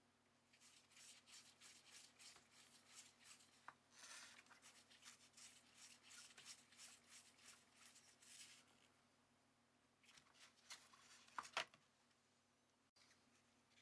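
Faint quick rubbing or brushing strokes for about eight seconds, then a few light clicks near the end.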